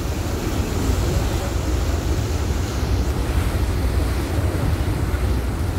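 Steady wind buffeting the microphone, heaviest as a low rumble, over the rush of water churned up in a ferry's wake.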